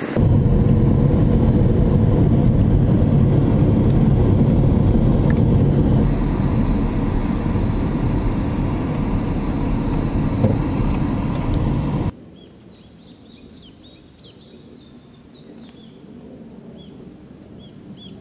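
Steady low rumble of a car driving, which cuts off suddenly about twelve seconds in. A much quieter stretch follows, with birds chirping.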